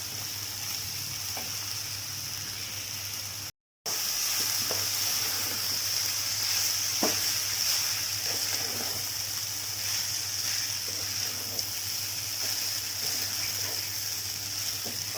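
Onions and steamed wheat vermicelli frying in oil in a pan: a steady sizzle with a few light knocks from the stirring spoon. The sound drops out briefly about three and a half seconds in.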